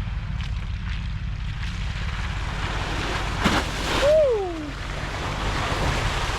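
Pickup truck driving through a mud hole: a steady low engine rumble under a rising rush of water and mud sloshing. A short click about three and a half seconds in, then a brief falling vocal whoop.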